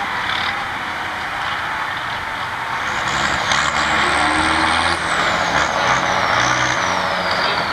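Volvo BM tractor's diesel engine working hard under load as it pulls a tractor-pulling sled, pouring black smoke. Its sound grows louder about three seconds in, with a thin high whistle that rises and then slowly falls.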